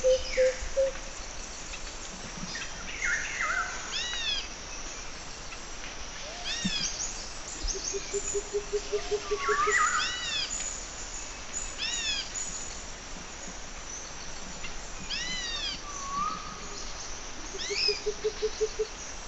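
Wild birds chirping: short rising-and-falling chirps every second or two, among them a low rapid trill that comes twice.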